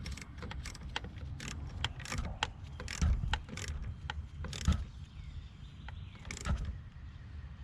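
A hand wrench fitting and tightening a car battery terminal clamp, with irregular metallic clicks and rattles several times a second.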